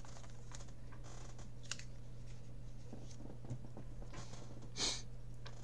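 Faint handling of a trading card on a mat: soft rustles and small clicks, and one short hiss a little before the end, over a steady low electrical hum.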